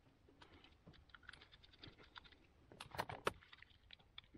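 Faint clicks and taps of a small plastic radio transmitter module being handled and its case opened, with a couple of louder clicks about three seconds in.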